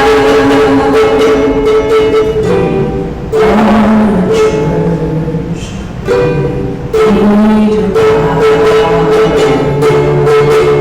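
Church worship music played by a band, with plucked strings and long held notes; it drops briefly about three seconds in and again about six seconds in.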